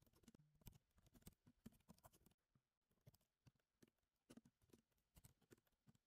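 Near silence with faint, irregular clicks of computer keyboard typing.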